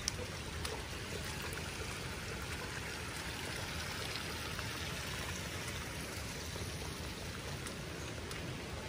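Heavy rain falling, a steady even rush of water noise.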